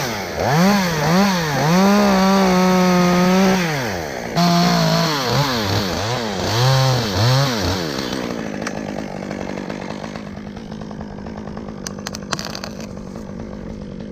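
Chainsaw cutting a notch in a tree limb, running hard with its pitch dipping and rising again and again. About eight seconds in it drops to a quieter idle, with a few sharp clicks near the end.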